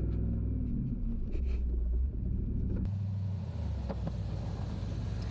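A vehicle engine running with a low, steady hum, its pitch shifting up and down in the first second or so.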